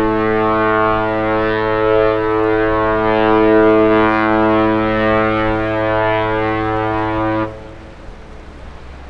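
A ship's horn sounding one long, deep, steady blast that cuts off sharply about seven and a half seconds in.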